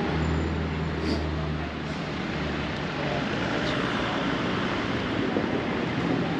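A motor vehicle's engine running with a low, steady hum that fades after about two seconds, over continuous traffic noise.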